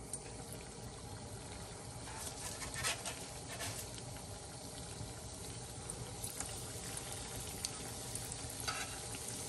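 Yeast doughnuts frying in shallow hot oil in a cast-iron skillet: a quiet, steady sizzle with scattered small crackles.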